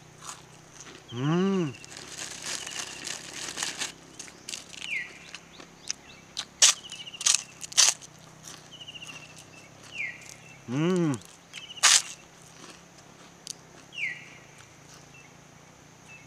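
A plastic bag crinkling and rustling around a bread roll as it is handled and eaten, with sharp clicks in between. A man gives a short rising-then-falling hum with his mouth closed twice, about a second in and near the middle.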